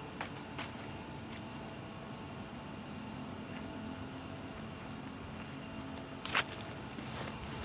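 Steady outdoor background noise with a few faint clicks and one sharper click about six seconds in.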